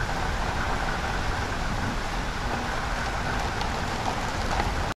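Steady noise of a thunderstorm's wind and rain, with wind rumbling on the microphone; it cuts off suddenly near the end.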